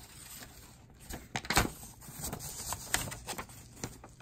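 A folded paper instruction leaflet being unfolded by hand: crinkling and rustling with sharp crackles, loudest about one and a half seconds in and again around three seconds.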